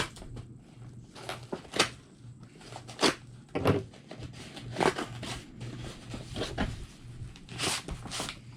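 Taped cardboard shipping box being opened by hand: a series of irregular tearing, scraping and knocking sounds as tape and flaps are worked, over a steady low hum.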